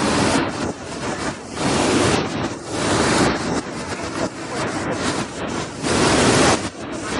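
Waterfall rushing, a dense roar of falling and splashing water that swells and eases in uneven surges.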